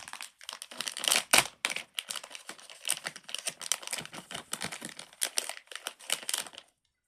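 Crinkly plastic packaging rustling and crackling as it is handled, in irregular bursts that stop shortly before the end.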